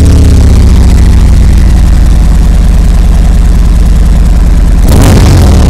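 Stock Harley-Davidson Tri Glide Ultra V-twin engine idling just after being started, with a steady, loud low pulse. Near the end the sound turns rougher and noisier.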